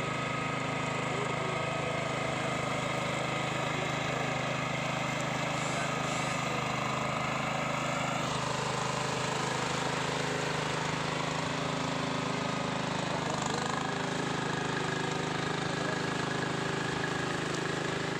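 Ride-on mower's engine running steadily at an even pitch while it cuts through tall dry grass.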